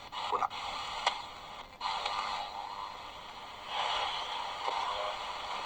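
FM static hiss from the XHDATA D-219 portable radio's speaker while it is tuned between stations, with a few sharp clicks.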